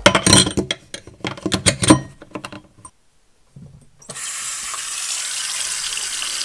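Metal basket strainer clicking and rattling as it is seated in a stainless steel sink drain. About four seconds in, the tap is turned on and water runs steadily into the stainless sink.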